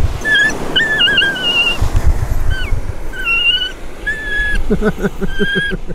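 Italian greyhound whining and crying in a string of high-pitched whines, upset and shivering, with a quick run of short, lower whimpers near the end. Wind rumbles on the microphone.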